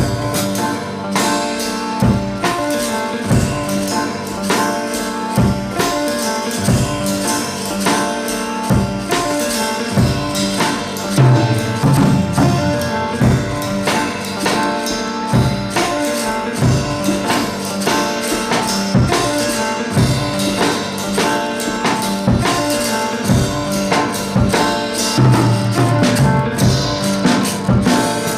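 Background pop music with a steady beat of drums and shaker-like percussion.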